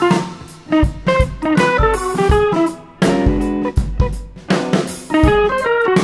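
Background music: plucked guitar lines over a drum kit beat.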